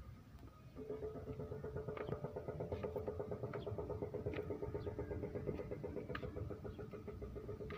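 A small engine running steadily, starting up about a second in, with a rapid even pulse and a sharp tick every second or so.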